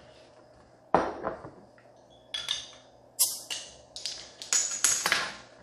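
A pint glass and a glass beer bottle being handled on a kitchen counter: a knock about a second in as the glass is set down, then a series of short clinks and clicks of glass against glass and the counter.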